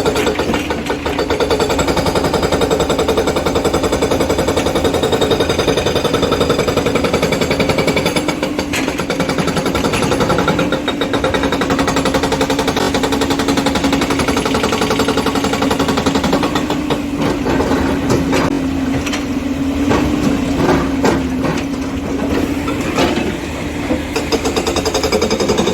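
Hydraulic rock breaker on an excavator hammering stone: a fast, continuous pounding over the steady hum of the machine's engine, with several louder separate knocks in the second half.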